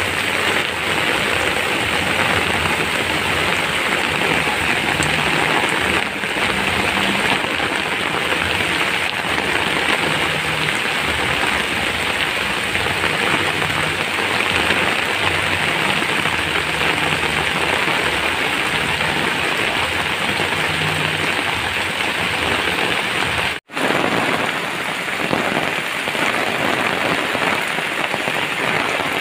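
Heavy rain pouring onto flooded ground and puddles, a steady dense hiss that cuts out for an instant near the end.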